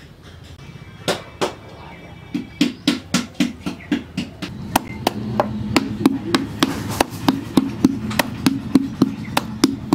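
Wooden paddle beating an unfired clay pot into shape on a stone block: a steady run of knocks, each with a dull thud, about three a second, starting about a second in.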